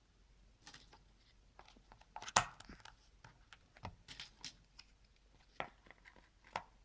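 Cardboard jigsaw puzzle pieces being handled and pressed into place, a series of short clicks and rustles with one sharper knock about two and a half seconds in.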